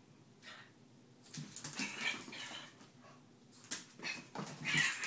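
Small dogs playing, with a run of short, irregular dog sounds starting a little over a second in and loudest near the end.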